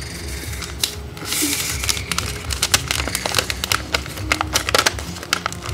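Sheet of lined notebook paper crinkling and rustling as it is folded in half and the crease is pressed down by hand, with many small crackles and a brief rustle about a second and a half in.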